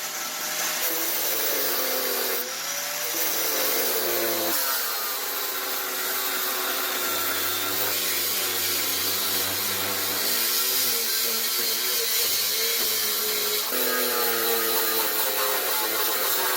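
Angle grinder running under load, cutting into the steel plate of a wood stove, its motor pitch wavering as the disc bites.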